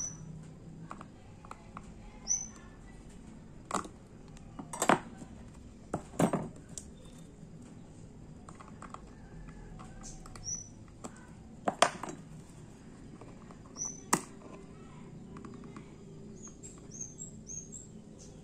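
A handful of sharp clicks and taps from small hand tools handling the watch movement and work surface, loudest about five and twelve seconds in. Short high bird chirps sound in the background every few seconds, with a quick run of them near the end.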